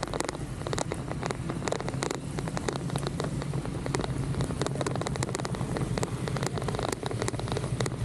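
Rain during a bicycle ride: many irregular sharp ticks of raindrops, over a steady low hum.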